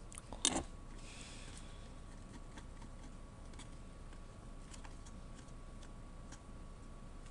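Small clicks and taps from handling laptop parts during disassembly: one louder double click about half a second in, then faint scattered ticks, over a faint steady high hum.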